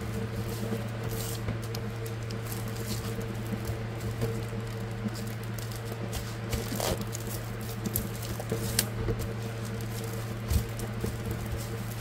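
Clear plastic sleeves crinkling and rustling in small irregular bursts as a spiral notebook is slid into one and handled, over a steady low hum.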